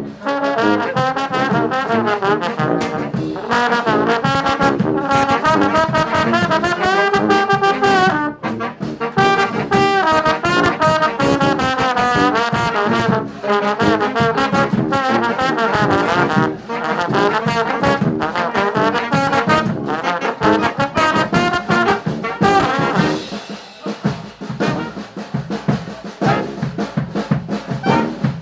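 Live brass band playing a fast tune, horns over a drum beat; about 23 seconds in the horns thin out for a few seconds, leaving mostly drums, before coming back in.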